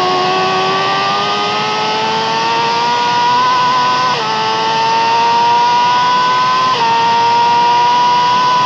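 Yamaha R6 (RJ15) 600 cc inline-four with an Akrapovic exhaust, accelerating hard at high revs: the engine note climbs steadily, then drops at a quick upshift about four seconds in and again about seven seconds in before climbing once more.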